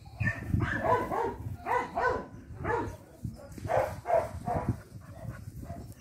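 Dog barking excitedly in a rapid, uneven run of about nine barks, which trail off near the end.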